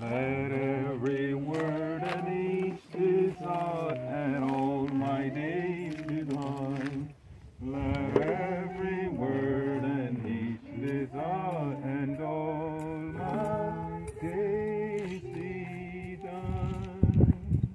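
A man singing unaccompanied, a slow melody in long, wavering held notes. A few low knocks come in near the end.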